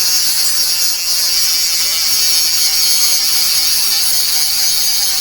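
Cordless mini angle grinder's abrasive disc cutting metal: a steady, loud, high-pitched grinding hiss.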